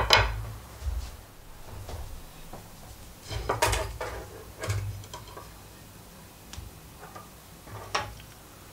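A round wooden dowel and a folding wooden ruler handled on a wooden tabletop: a sharp knock as the dowel is set on the table, then a few lighter knocks and clatters as the ruler is laid along it.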